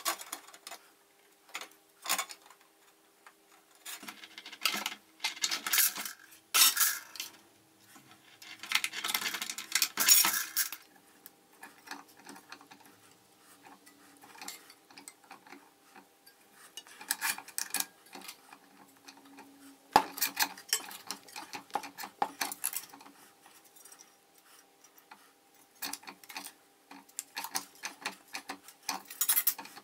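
Hand tools and steel parts clinking, tapping and scraping against each other on a workbench, in scattered bursts with one sharp metal knock about twenty seconds in. A faint steady hum runs underneath.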